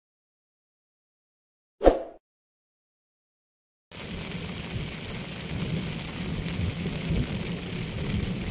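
A single short, sharp crash about two seconds in, then steady rain that starts abruptly about four seconds in.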